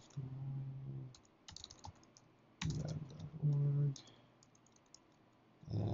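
Typing on a computer keyboard: quick runs of key clicks, with a short low voiced hum twice between them.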